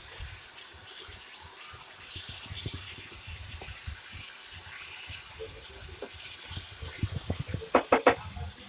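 Marinated chicken pieces sizzling in ghee in a nonstick pan with a steady hiss, stirred with a wooden spatula. The spatula knocks and scrapes on the pan, several times in quick succession near the end.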